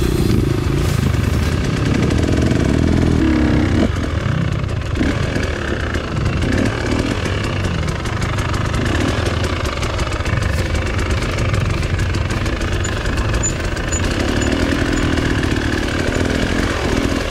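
Off-road trail motorcycle engine running, slightly louder for the first few seconds.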